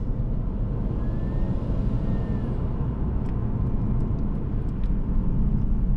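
Cabin sound of a Nissan Skyline R32 GTS-t's RB20DET twin-cam turbocharged straight-six accelerating at expressway speed: a steady low rumble of engine and road noise.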